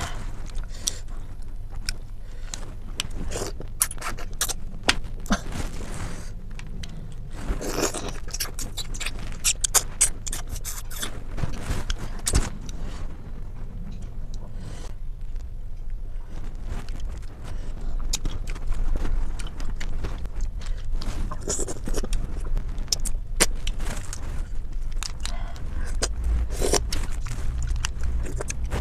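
Close-miked eating sounds: clam shells clicking and scraping against one another as they are handled and picked at, a rapid run of short clicks.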